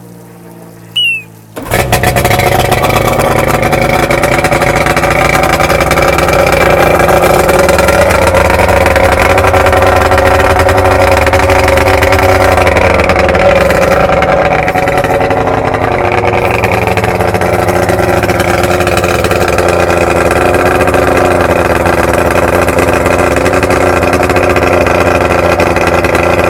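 1993 Evinrude 70 HP three-cylinder two-stroke outboard starting after a short burst about a second and a half in, then running steadily. The engine has a freshly rebuilt powerhead with an oversize piston and a new crankshaft.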